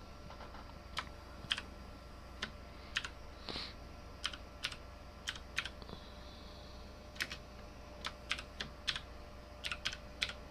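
Computer keyboard keystrokes: slow, uneven typing, single clicks and short runs of keys with pauses between, over a faint steady low hum.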